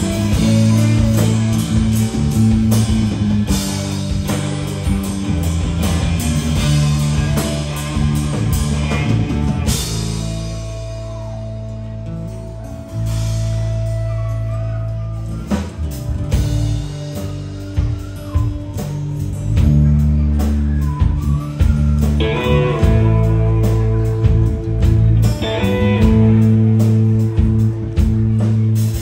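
Guitar-led instrumental music with no singing: held bass notes and chords under plucked guitar lines.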